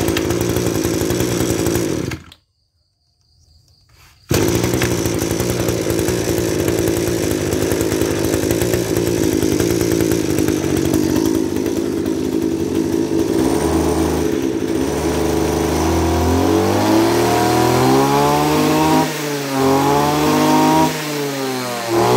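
Kawasaki TJ27 brush cutter's 27 cc two-stroke engine running at idle. About two seconds in, the sound drops out for about two seconds, then the engine idles steadily again. In the last six seconds the throttle is opened several times, and the engine revs up and falls back each time.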